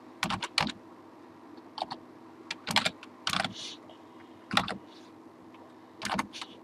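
Typing on a computer keyboard: a dozen or so short, sharp key clicks at irregular intervals, some in quick little runs, over a faint steady hum.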